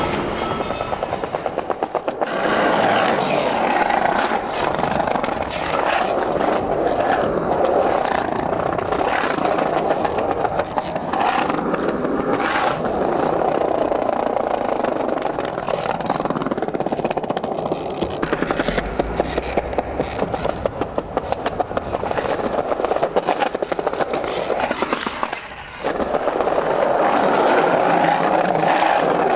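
Skateboard wheels rolling over pavement: a steady, rough rumble with frequent small clacks from cracks and joints, dipping briefly near the end.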